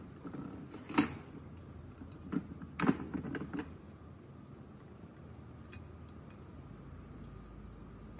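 Metal clinks and knocks of a motorcycle stator cover and engine parts being handled: a sharp knock about a second in, a cluster of clinks between two and four seconds in, then a few faint ticks.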